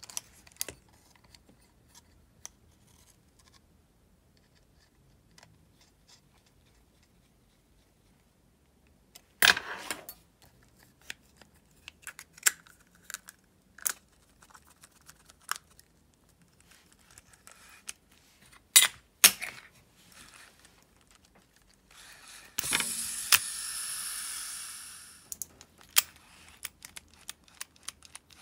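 Small metal parts of a Shimano Calcutta Conquest 400 baitcasting reel clicking, tapping and knocking as the reel is put back together with a screwdriver. About 22 seconds in, the reel spins freely with a smooth whir that winds down over about three seconds.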